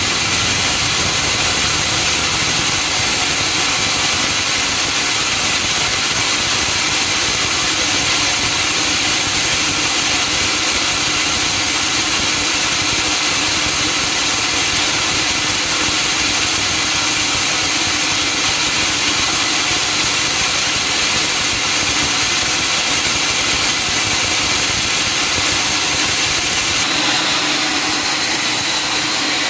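Sawmill machinery running steadily, a dense mechanical noise with a strong hiss; the low rumble drops away near the end.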